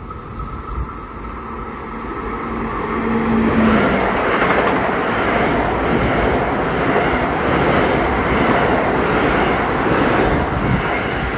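Long Island Rail Road electric multiple-unit train approaching and running past the platform on the near track, its wheels on the rails growing louder over the first few seconds and then a steady loud rumble as the cars go by.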